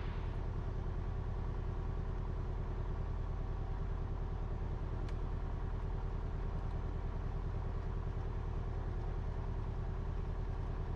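Cessna 172RG's four-cylinder Lycoming O-360 engine idling steadily on the ground, with an even low drone that holds constant.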